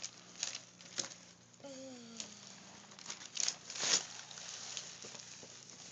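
Wrapping paper rustling and tearing in short, irregular bursts as a gift is unwrapped by hand, the loudest rip about four seconds in.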